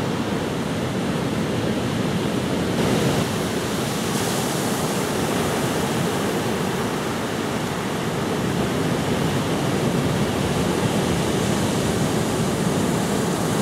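Ocean surf breaking on a beach: a steady wash of waves.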